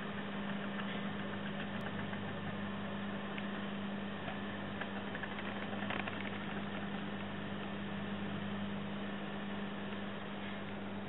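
Steady low electric hum with a hiss and a few faint ticks: a small electric motor running the wooden automaton's cam mechanism.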